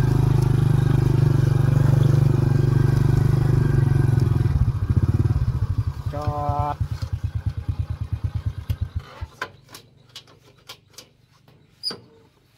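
A small motorcycle engine running steadily, then dropping to a slow idle whose strokes come further and further apart until it stops about nine seconds in as it is switched off. A short tone sounds about six seconds in, and a few clicks and knocks follow the engine stopping, the loudest near the end.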